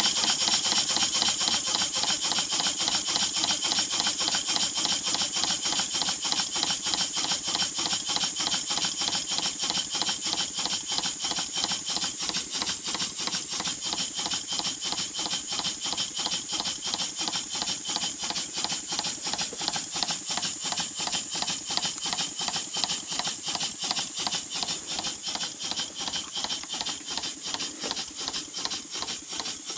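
Large model vertical live steam engine running steadily, its exhaust giving a fast, even beat of steam chuffs with a hiss. The sound gradually grows quieter.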